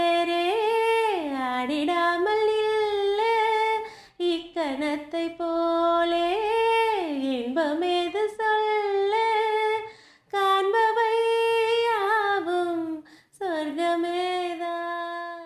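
A woman's voice humming a slow, unaccompanied melody in long held notes with gliding pitch, breaking off briefly three times.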